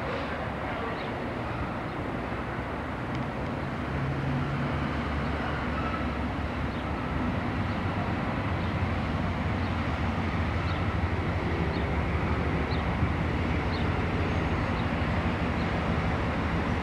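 InterCity HST led by a Class 43 diesel power car, its engine running steadily as the train draws slowly into the platform, growing louder as it comes nearer.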